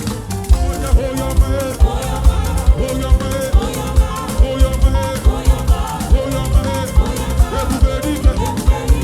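Live gospel band playing upbeat African-style praise music with a steady, driving drum beat.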